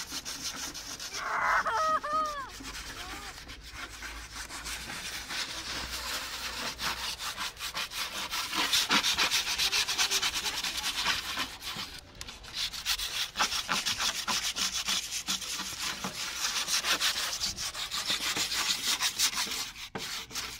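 Several people hand-sanding wooden chairs with sandpaper: a continuous scratchy rasp of many quick back-and-forth strokes overlapping. It grows louder about a third of the way in and dips briefly past the middle.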